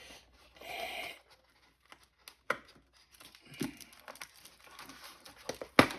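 Plastic blister packaging crinkling as an action figure is worked free of its tray. A short rustle comes about half a second in, then scattered sharp clicks and snaps, the loudest near the end.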